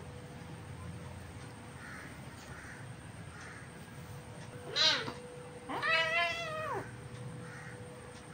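Kitten meowing twice while play-fighting: a short call about halfway through, then a longer one that rises and falls.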